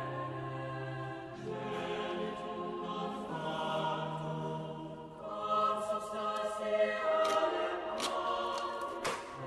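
Background music with choir-like sustained voices holding chords, joined in the second half by several short, sharp clicks.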